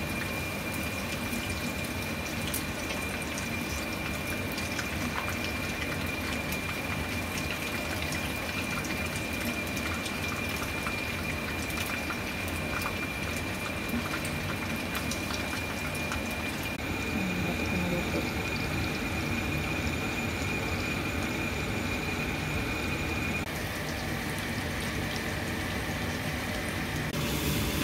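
Battered pieces of fish fillet sizzling and crackling in hot oil in a wok, a steady frying hiss peppered with small pops. A faint steady high whine runs underneath.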